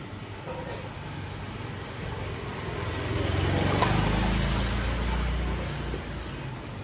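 A motorbike engine passing close by: a low engine hum that grows louder to a peak about four seconds in, then fades away.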